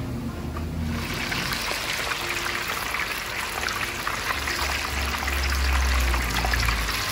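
Food deep-frying in a wok of hot oil: a dense, steady sizzle full of fine crackles that swells about a second in, with a low rumble in the second half.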